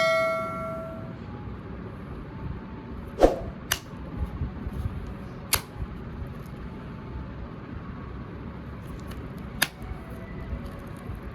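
A ringing chime fades out in the first second. Then a few sharp clicks come singly, several seconds apart, the loudest about three seconds in, over a steady background hiss.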